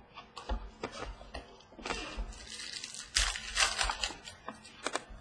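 Basketball trading cards handled by hand: cards slid and flicked through a stack, making a run of small sharp clicks and papery rustles, busiest about three seconds in.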